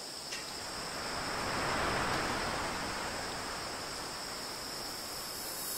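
Sea waves washing on a beach: a steady hiss that swells to a peak about two seconds in and slowly eases off, with a steady high-pitched ringing above it.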